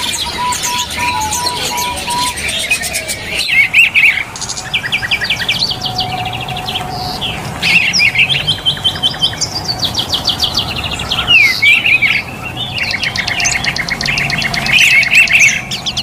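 Songbirds chirping and trilling in quick bursts of high notes, with whistled slides among them. In the first two seconds there is a run of about seven even, piping notes.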